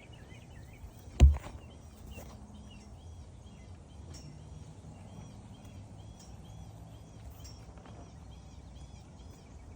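Small birds chirping over and over, short arched chirps at a steady pace, with one sharp loud knock about a second in.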